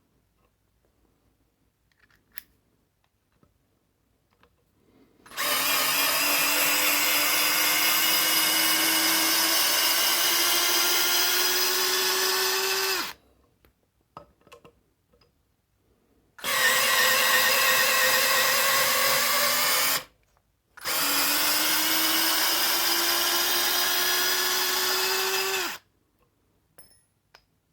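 Parkside Me PMBSA 4 A1 cordless drill's small brushless motor running in reverse to back out chipboard screws: three long runs, the first about eight seconds, each rising slowly in pitch as the screw loosens. Between the runs come a few faint clicks.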